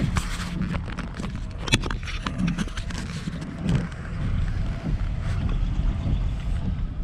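Chevrolet car rolling slowly along a rain-soaked, flooded street, heard from inside the cabin: a steady low engine and road rumble with the hiss of tyres on wet pavement. A few sharp clicks and knocks are scattered through it, the loudest about two seconds in.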